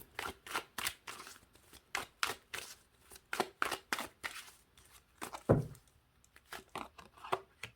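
Tarot cards being shuffled and handled, with a string of quick papery flicks and snaps and one heavier knock about five and a half seconds in.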